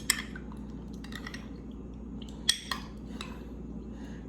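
A small spoon stirring honey and lemon juice in a container, clinking against its sides in scattered, uneven taps, the loudest about two and a half seconds in.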